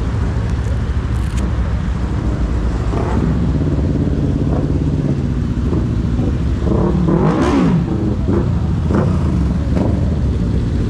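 Yamaha YZF-R6 inline-four with a full-system aftermarket exhaust running under way, then revving up and dropping back briefly about seven seconds in.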